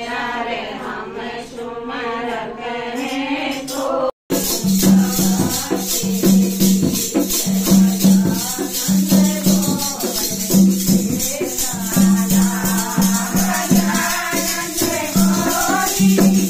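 Group of women singing a devotional kirtan in unison. About four seconds in, after a brief break, wooden kartal clappers with metal jingles join, rattling in a quick, steady beat under the singing, with a low hum coming and going.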